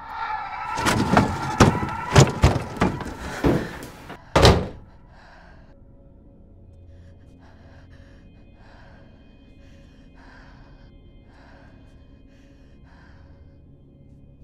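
Horror-film sound design: a rising musical swell under a rapid series of heavy thuds and bangs, ending with one last loud bang about four and a half seconds in. After that only a faint steady drone remains, with soft pulses about once a second.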